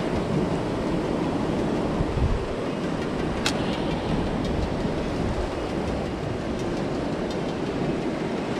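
Steady rushing of ocean surf on a rocky shore, mixed with wind on the microphone, with a single sharp click about three and a half seconds in.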